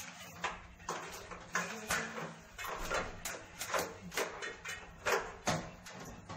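Irregular knocks, scrapes and rustles of hands handling the refrigerant piping and cables of a split air conditioner during installation overhead.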